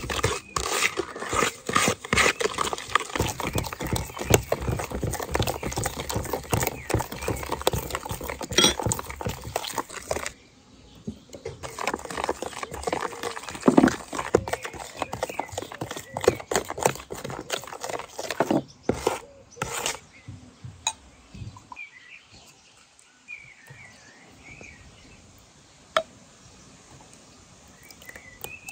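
Wooden spoon beating apricot purée and sugar in a plastic bowl: a rapid clatter of strokes that pauses briefly about ten seconds in and stops around twenty seconds in. After that it is quieter, with small birds chirping.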